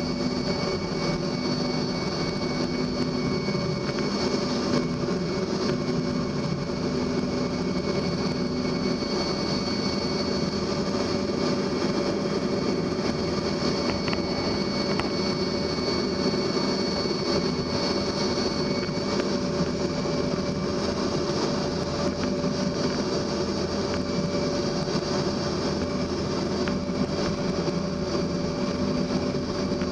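Cabin noise of a CRJ-200 regional jet on approach: its rear-mounted GE CF34 turbofans and the airflow make a steady drone, with a high steady whine and a lower hum running through it.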